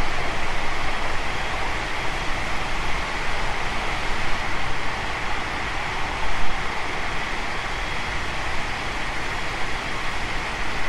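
Running noise of a JR 521 series electric multiple unit travelling at steady speed: an even rumble and hiss of wheels on rail, with a brief louder thump about six and a half seconds in.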